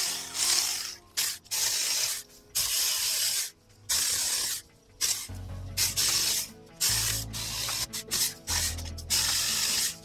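Small cordless electric chainsaw cutting through small branches in a series of short bursts, each a hissing cut, with brief pauses between them.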